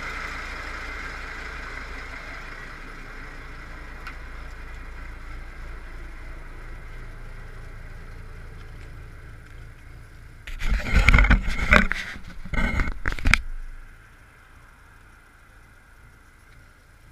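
The 1956 Berliet PLB coach's engine running steadily, slowly fading as the coach pulls away. About ten seconds in, loud, rough, crackling bursts take over for some three seconds, then only a faint background hum remains.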